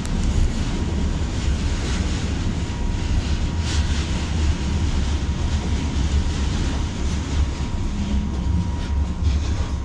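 Steady low rumble and hiss of a Beijing subway train running on an elevated track, heard from inside the carriage, with a faint steady whine.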